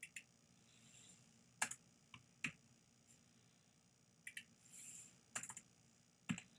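Scattered clicks of a computer keyboard, about a dozen irregular keystrokes, with two short soft brushing sounds between them.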